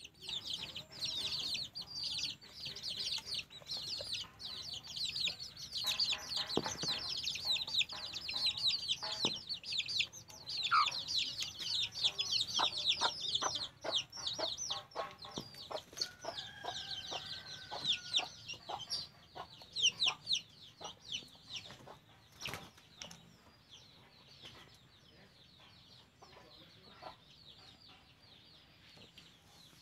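Chicks peeping continuously in short high chirps, with a hen clucking, and sharp taps of beaks pecking grain from a coconut-shell bowl. The peeping fades out after about twenty seconds, and the taps come thickest in the middle.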